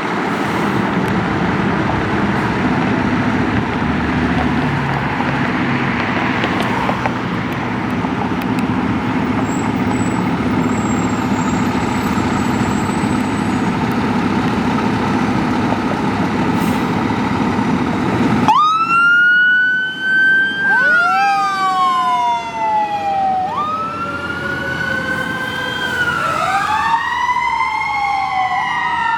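A Spartan Gladiator fire ladder truck's electronic siren wails, several overlapping tones each rising quickly and falling slowly. It cuts in abruptly about eighteen seconds in, after a stretch of loud, steady, noisy rumble.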